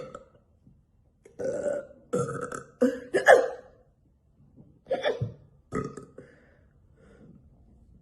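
A woman burping repeatedly: a short burp at the start, a quick run of four burps, the loudest near the middle, then two more. They come from a stuffed, bloated stomach after a long session of eating.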